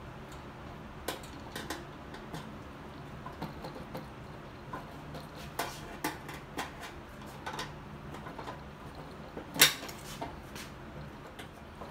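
Scattered light clicks, knocks and scrapes as a Harley-Davidson fuel pump assembly is worked up out of the gas tank's opening, its bracket and fuel line bumping the tank, with one louder knock near the end.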